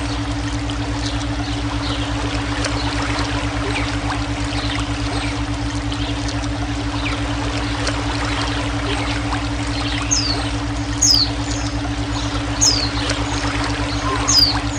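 Running water trickling and splashing over a steady low electronic drone with a fast even pulse, a brainwave tone. In the last few seconds a bird gives about four short, high, falling whistles.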